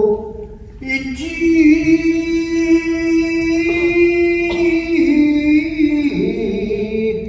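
Shigin, Japanese classical poetry chanting: after a brief pause, one voice holds a long drawn-out note with a wavering ornament, then steps down to a lower pitch about five seconds in.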